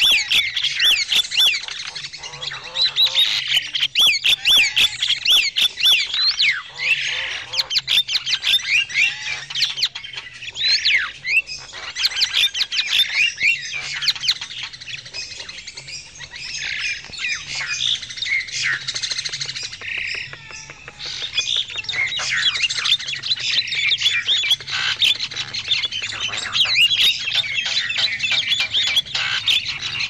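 Javan mynas (jalak kebo) calling noisily: many harsh squawks and chattering notes overlapping, thinning out for a moment now and then. This is a lure recording, played to draw wild mynas in.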